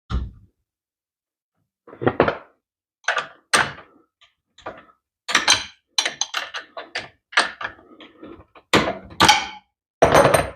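Irregular knocks and clanks of hand tools and metal parts being handled, about fifteen short hits with brief pauses between them.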